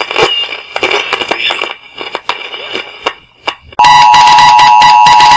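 Irregular knocking and rattling for the first few seconds. Just under four seconds in, a loud, steady electronic two-tone alert signal cuts in abruptly, like an emergency broadcast attention tone.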